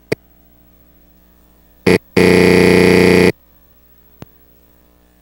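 A loud, steady electronic buzz at one fixed pitch, lasting about a second, preceded by a sharp click and a short blip and followed by a faint click, with near silence in between.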